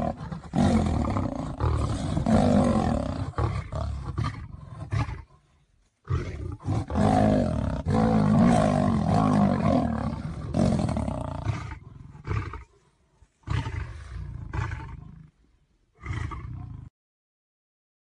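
Big cats roaring in long bouts, broken by short pauses about five, twelve and fifteen seconds in; the sound cuts off about a second before the end.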